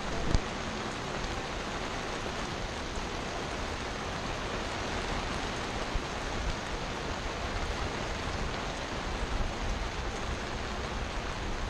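Heavy rain falling, a steady even hiss, with one short knock about a third of a second in.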